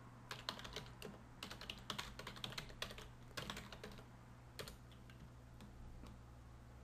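Computer keyboard being typed on in quick, faint runs of key clicks, as a terminal command is entered, stopping a little under five seconds in. A faint steady low hum lies underneath.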